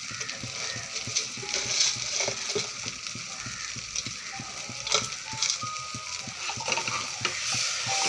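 Food sizzling in hot oil in a cooking pot while being stirred, the spoon scraping and clicking against the pot many times.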